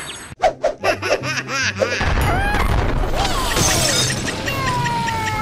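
Background music with cartoon sound effects. About two seconds in, a loud boom and rumble sets in as a high-rise tower is blasted down by demolition charges. A crash of breaking glass follows a moment later.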